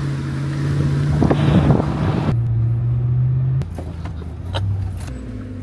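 Ram pickup truck's engine and road noise heard from inside the cab while driving a gravel track: a steady low hum that drops in pitch in steps, with a few knocks and rattles from the cab.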